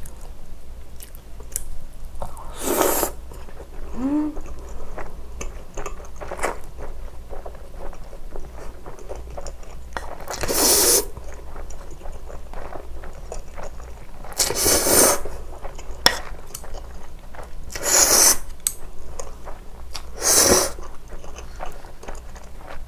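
Close-miked eating of spicy stir-fried noodles and fried sweet and sour pork: steady chewing with small clicks of chopsticks on a wooden bowl, broken by five louder slurps of noodles.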